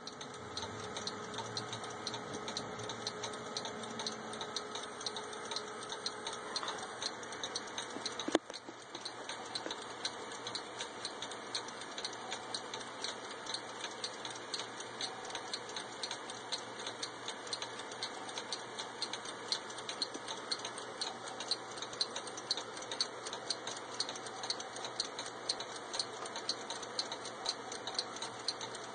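Several vintage mechanical clocks ticking together, a steady run of overlapping ticks, with one sharp click about eight seconds in.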